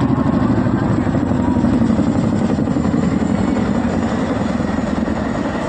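Boeing CH-47 Chinook tandem-rotor helicopter flying low overhead, its twin rotors making a loud, steady rapid chop, growing slightly fainter near the end as it moves off.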